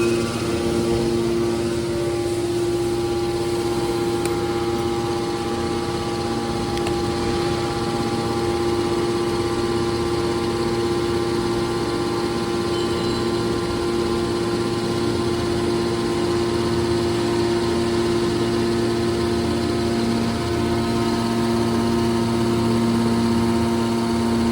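A hydraulic scrap car baler's motor and pump running steadily, a continuous hum with several held tones.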